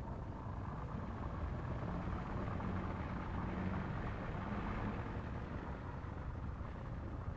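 Steady low rumble of night-time outdoor background noise, with a faint hum that swells and fades between about two and five seconds in.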